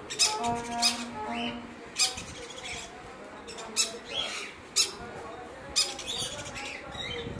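Green-cheeked conures giving short, harsh squawks, about eight of them at irregular intervals.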